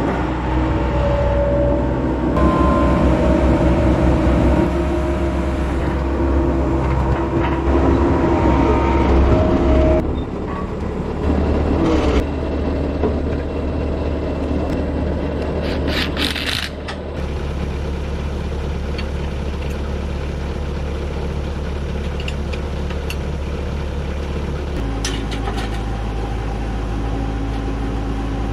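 Skid steer loader's engine running as it carries and lifts an engine block on its forks, its pitch shifting several times. Some sharp metal clanks come about halfway through, and the engine settles to a steadier note near the end.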